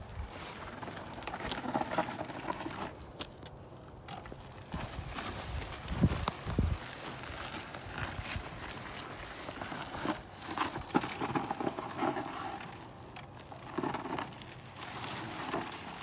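Loose gravel and rocks crunching and clattering in irregular steps under a heavy adventure motorcycle's tyres and boots as it creeps down a steep, loose dirt slope. There are a couple of dull thumps about six seconds in.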